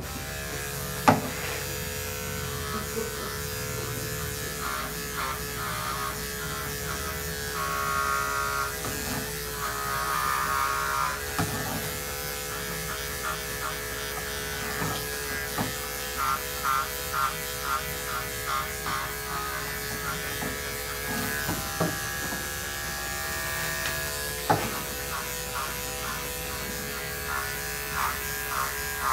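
Corded electric dog-grooming clippers fitted with a #10 blade, running steadily while shaving a dog's coat. The hum holds one pitch, with stretches of quick, regular pulsing and a few sharp clicks.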